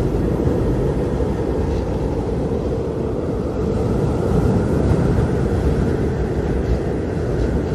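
Airliner cabin noise in cruise flight: a steady, loud rush of engine and airflow noise, deep and even, with no breaks.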